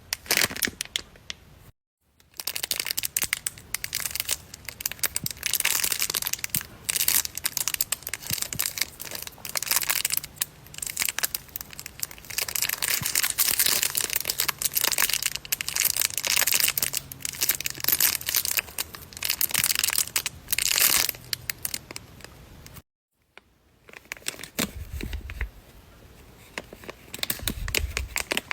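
Crinkly, crackling bursts of handmade paper squishies being squeezed and handled, their tape-and-paper skins crumpling, broken by two brief silences.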